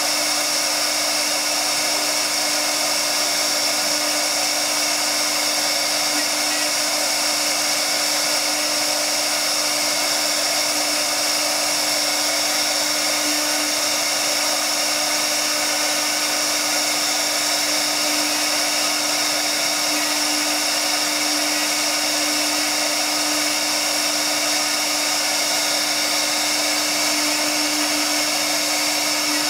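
Tiptopcnc 1325 CNC router's spindle running steadily while its bit carves a relief pattern into MDF board. It makes a continuous, even whine over a hiss of cutting.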